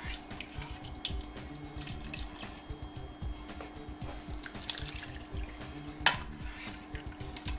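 Ladle dipping into the pressure cooker's pot of juices and carrots, with liquid pouring and dripping off it into a strainer and small knocks of the ladle against the pot; one louder knock about six seconds in.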